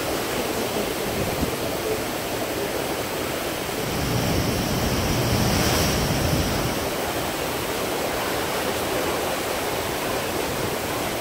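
Steady rush of sea water and breaking waves alongside a moving cruise ship, with wind on the microphone; it swells briefly about four seconds in.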